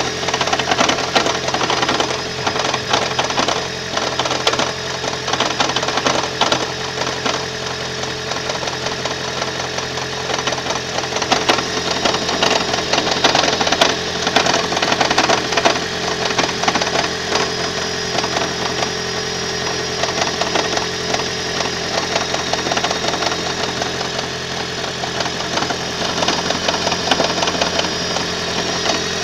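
Toyota Prius 1.8-litre four-cylinder engine running with a steady hum and a rapid, continuous knocking rattle. This is the knocking and vibration noise the owner is documenting as a fault.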